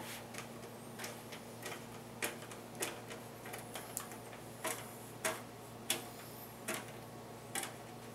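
Sharp, irregular metal clicks, about one or two a second, from screwdriver work driving the small screws that fix an optical drive into a computer case.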